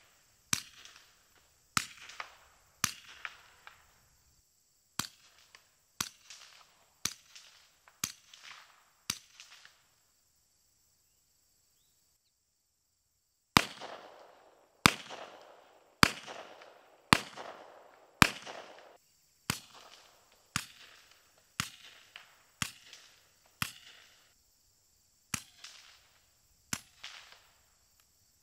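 Single 9mm semi-automatic shots about a second apart. The first run is through an AB Suppressors F4 on an SP9A3 carbine. After a short silence come five louder unsuppressed shots from a Zenith Z-5P. The rest are quieter again, fired through the F4L suppressor on the Z-5P.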